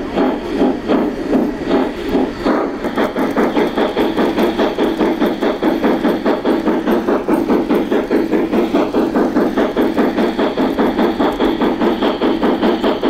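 Large-scale model steam locomotive running, chuffing in an even rhythm of about four chuffs a second.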